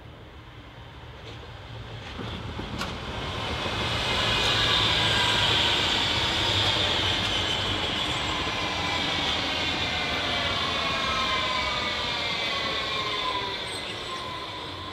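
A Berlin U-Bahn train on an elevated steel viaduct approaches and runs past. It grows louder over the first few seconds, then passes with wheel-and-rail noise and a whine of several tones slowly falling in pitch, and fades near the end.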